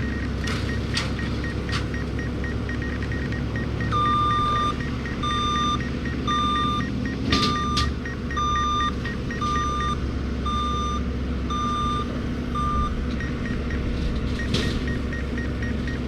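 John Deere 333E skid steer's diesel engine running steadily with a 72-inch tree shredder head, with a few sharp cracks. From about four seconds in, a loud electronic beep sounds about once a second for some nine seconds, over a fainter, faster beeping.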